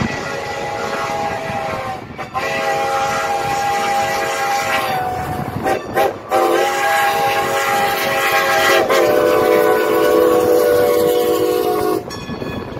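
Steam locomotive whistle of Strasburg Rail Road No. 90, a 2-10-0 Decapod, sounding several notes together at a grade crossing. It blows long, long, short, long, the standard crossing signal, and the last long blast cuts off shortly before the end.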